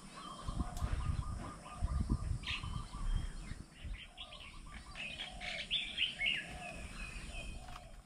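Several birds calling at once: a rapid trill lasting about two seconds at the start, a lower call repeated again and again, and a burst of chattering chirps in the second half. A low rumble runs under the first three seconds.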